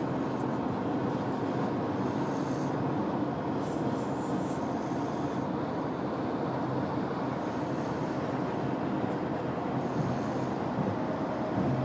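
Steady road and engine noise inside a moving car's cabin. Through it comes a man snoring in the back seat, with faint breaths every few seconds.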